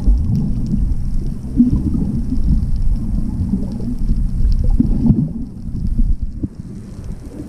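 Muffled underwater rumble and water movement picked up by a submerged camera, with a couple of brief louder surges and a drop in level near the end.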